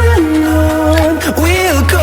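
Background pop song: a sung or synth melody line gliding over a steady bass, with no vocals clearly heard in this stretch.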